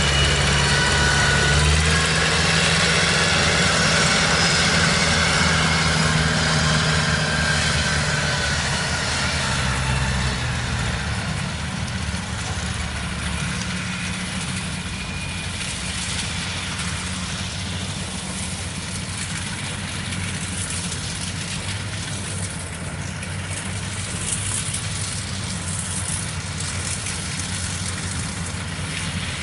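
Small single-cylinder diesel engine of a farm cart hauling rice sacks, running close by. It is loudest for about the first ten seconds, then drops to a quieter, steady engine drone from harvest machinery in the field.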